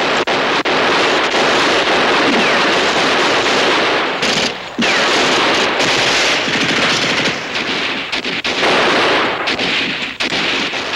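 Sustained automatic gunfire from several guns firing at once, shots overlapping into a continuous volley of covering fire, with brief lulls about four and a half and eight and a half seconds in.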